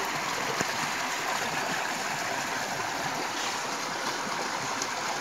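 Fast-flowing stream water rushing steadily out of a culvert, a continuous even rush with no pauses.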